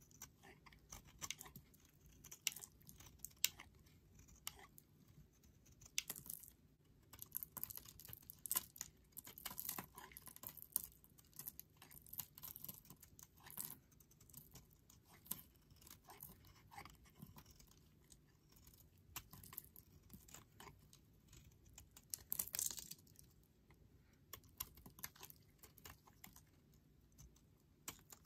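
A snap-off utility knife blade cutting and shaving a bar of Caress charcoal and rosehip oil soap, giving quiet, irregular runs of sharp crackles and scrapes as chips break off the bar.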